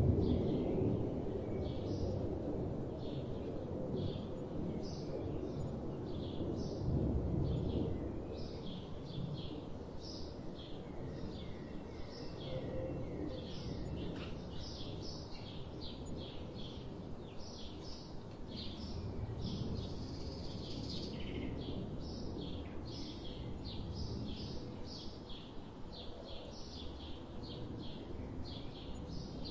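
Small songbirds calling over and over in short, high chips through the whole stretch, over a low outdoor rumble that swells briefly near the start and again about seven seconds in.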